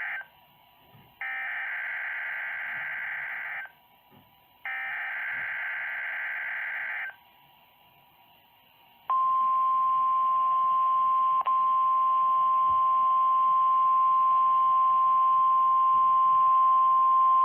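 NOAA Weather Radio Emergency Alert System test. First come the SAME header bursts: three screeching bursts of digital data tones, each about two and a half seconds long with a second's gap between them. Two seconds later the steady 1050 Hz warning alarm tone starts and holds for about nine seconds. This is the station's weekly test of the alarm tones that switch on weather alert receivers.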